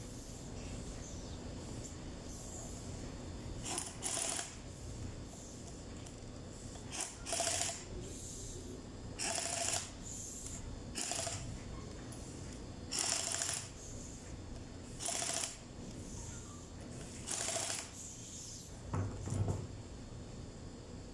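Pneumatic impact wrench run in about nine short bursts of half a second or so, undoing the bolts of a forklift hydraulic pump so it can be taken apart. A knock comes near the end as the wrench is put down.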